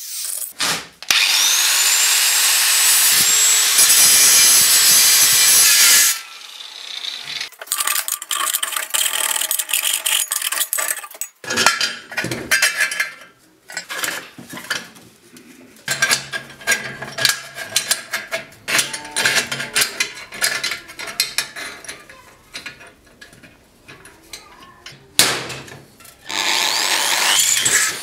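A power tool spins up with a rising whine and cuts for about five seconds, then stops. It is followed by irregular scraping, rubbing and knocking of hand work on the workpiece, a sharp knock, and a second short run of the power tool near the end.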